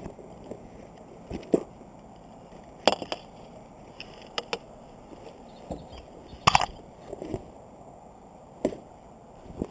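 Hands rummaging through a soft fabric tackle bag: plastic tackle boxes and gear inside click and knock against each other in about a dozen scattered, sharp knocks, the loudest about two-thirds of the way through.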